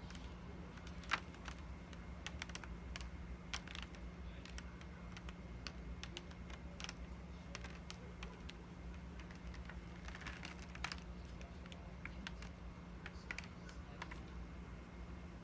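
Scattered light clicks and taps, irregular and unhurried, as a stretched canvas is gripped by its edges and tilted on a work table to spread poured acrylic paint, with one sharper tap about a second in. A steady low hum runs underneath.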